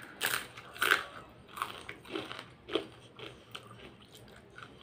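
Crunching bites and chewing of a crisp fried bitter-gourd (karela) fritter: two loud crunches in the first second, then softer crunches about every half second as it is chewed.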